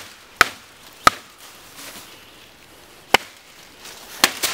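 Knife blade chopping into a sapling's side limb where it joins the stem, notching it so it can be snapped off: sharp knocks of steel into wood, two in the first second, a pause, then three more near the end.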